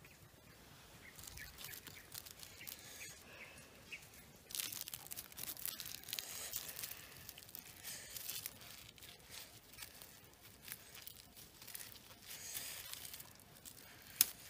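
Dry, charred corn husks being torn and peeled off a fire-roasted ear of corn by hand: irregular crackling and rustling that grows busier about a third of the way in, with a sharp snap near the end.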